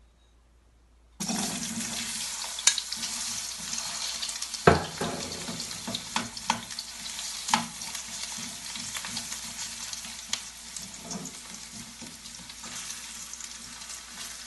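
Cubed potatoes frying in hot oil in a frying pan: the sizzle starts suddenly about a second in as they go into the oil, and metal tongs click and knock against the pan a number of times as the pieces are turned, one knock louder than the rest near the middle.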